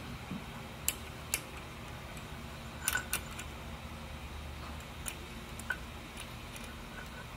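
Scattered light metallic clicks and taps, clearest in the first three seconds, as a tabbed steel lock washer is worked down over the slotted shaft of a Bridgeport step-pulley bull gear assembly. The washer's tab is bent in too far and catches, so it will not slide down. A low steady hum runs underneath.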